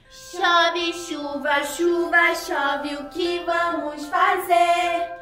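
A woman singing a children's song in a series of short phrases, with steady held tones from a light backing underneath.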